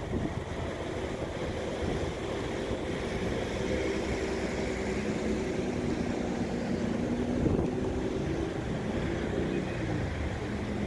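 Queued cars and a pickup truck creeping through a roundabout, their engines running at low speed in a steady traffic hum.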